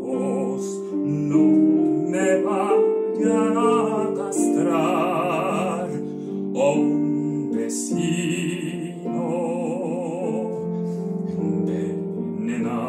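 Operatic tenor singing a Spanish-language aria with wide vibrato over piano accompaniment.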